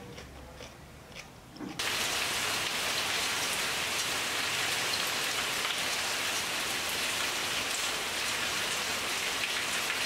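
Steady rain falling, starting suddenly about two seconds in; before it, a quiet room with a few faint clicks.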